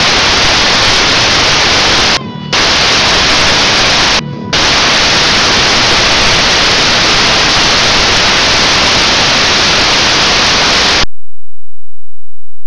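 Loud, even hiss like static, dipping briefly twice, where a faint steady tone shows through, then cutting off suddenly near the end.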